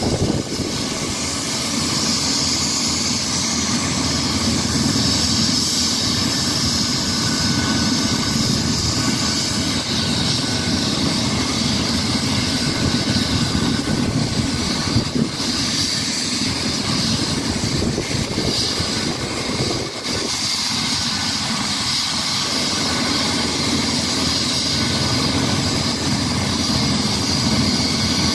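Eurocopter EC135 air-ambulance helicopter running on the ground before lift-off, its twin turbines and turning rotor making a steady high whine over a lower rumble.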